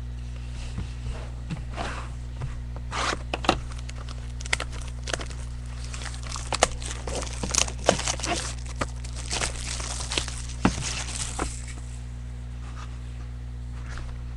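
Trading card packs and their box being handled and opened: irregular crinkling, tearing and tapping that dies away about eleven and a half seconds in, over a steady low hum.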